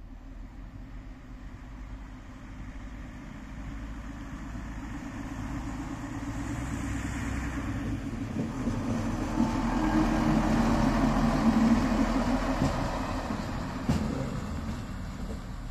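DR class 172 'Ferkeltaxi' diesel railbus approaching and passing, its engine running and wheels rolling on the rails. It grows steadily louder to a peak about ten to twelve seconds in, then fades as it moves away, with a single sharp clack about fourteen seconds in.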